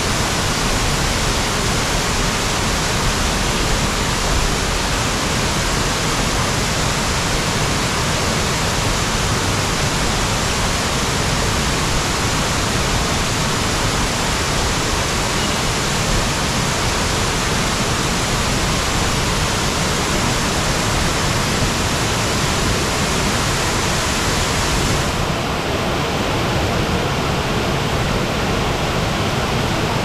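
Waterfall cascading down a steep rock face: a loud, steady rush of falling water. About 25 seconds in, the sound turns a little duller.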